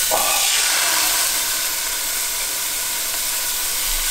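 Raw steaks sizzling in a hot frying pan as they are laid in with tongs: the steady hiss of the start of a sear.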